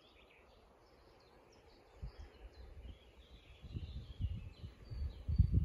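Birds chirping and singing in many short calls. Irregular low rumbling on the microphone begins about two seconds in and grows stronger near the end.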